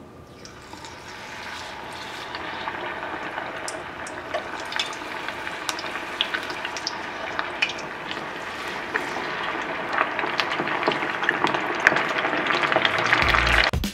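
Battered chicken pieces deep-frying in hot oil in a saucepan: a dense sizzle full of small crackles and pops, growing steadily louder as more pieces are dropped in.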